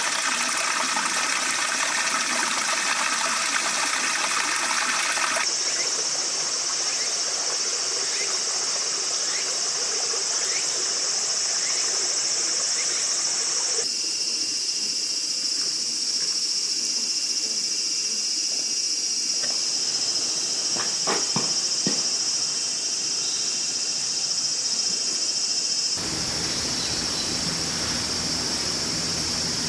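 Outdoor forest ambience dominated by a steady, high-pitched insect chorus. Running water is mixed in during the first few seconds, and the background changes abruptly several times.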